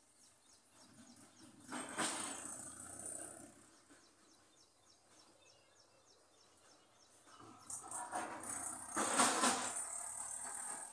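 Water splashing and sloshing around a small wooden boat in two spells, a short one about two seconds in and a longer, louder one from about eight seconds in.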